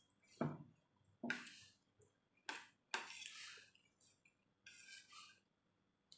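Quiet eating sounds: a spoon and fork clinking and scraping on a plate of rice, with mouth sounds as food is taken from the spoon. There are about five short, separate sounds.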